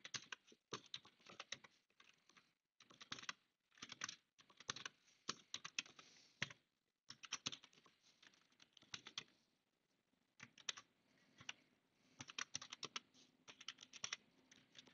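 Faint computer keyboard typing: quick runs of key clicks with short pauses between them, as an email address and password are typed in.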